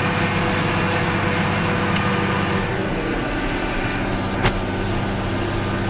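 John Deere 6530 tractor's 130 hp diesel engine running steadily under load while pulling a four-furrow reversible plough through the soil. A single brief knock about four and a half seconds in.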